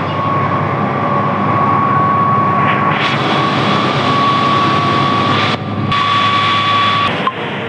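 Engine-driven fire pump running steadily with a whine, while the hose jet hisses onto the smouldering hay. A higher hiss joins about three seconds in and cuts in and out abruptly near the end.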